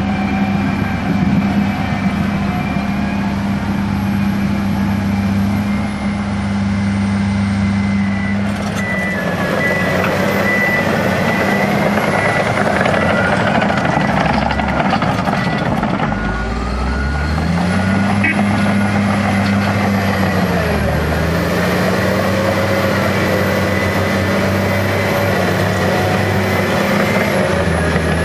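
Komatsu D65PX bulldozer's diesel engine running steadily while working, its pitch dropping and then climbing back just past halfway through.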